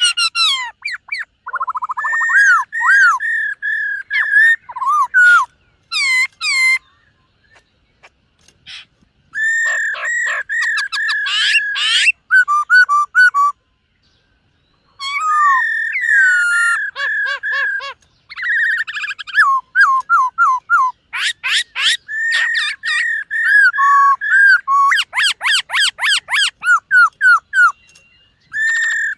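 Black-throated laughingthrush singing: loud, clear whistled phrases of held notes, swooping notes and fast runs of repeated notes. The song comes in bursts, with two short pauses about a third and halfway through.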